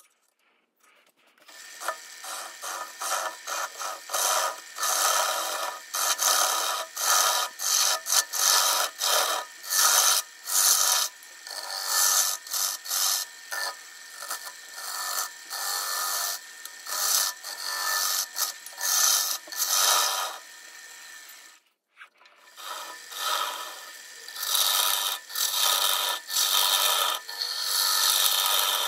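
Wood being sanded or rubbed by hand, most likely the maple bowl: rhythmic scratchy back-and-forth strokes, about two a second. They start about a second and a half in and stop briefly about three quarters of the way through.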